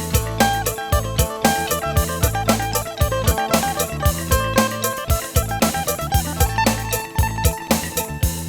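Background music with a steady drum beat, held bass notes and a plucked-string melody.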